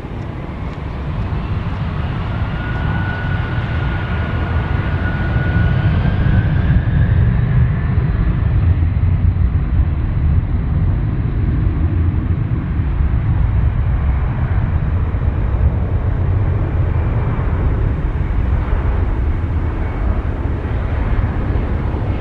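Jet airliner's engines, a loud rumbling roar that builds over the first several seconds and then holds, with a high whine that rises in pitch early on.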